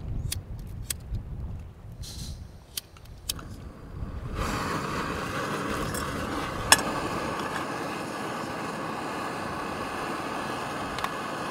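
Portable gas canister camping stove being lit: a few sharp clicks, then about four seconds in the burner catches and runs with a steady hiss.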